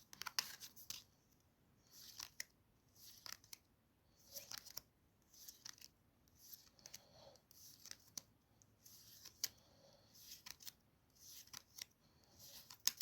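Faint papery swishes and clicks of trading cards being slid and flipped over one at a time, about once a second.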